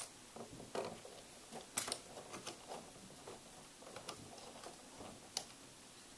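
Scattered small clicks and light taps from hands working at a laptop's plastic screen bezel while fitting its screws; the sharpest clicks come about two seconds in and near the end.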